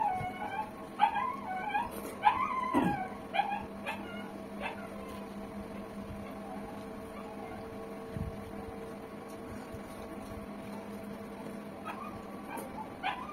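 Short, high, whining calls from a small pet animal: a cluster in the first few seconds and a couple more near the end, over a steady background hum.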